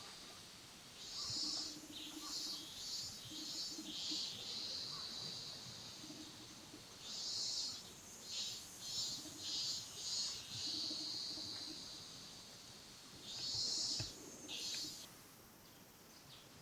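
Small birds chirping in repeated bursts of short, high calls, bunched in three spells and fading out near the end.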